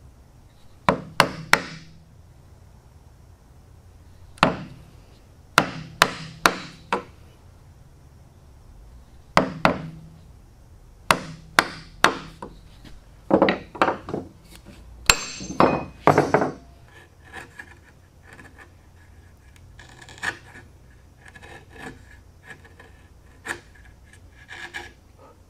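A mallet strikes a chisel to chop waste out of a dovetail cut in the end of a board, in quick groups of two to four sharp blows. In the last third the blows stop, and there is softer scraping with light clicks as a hand-pushed chisel pares the corners clean.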